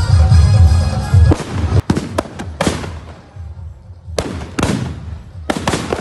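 Background music with a heavy beat that cuts off about a second in, then firecrackers going off in a burning Ravan effigy: a quick run of sharp cracks, a short lull, then another run of cracks.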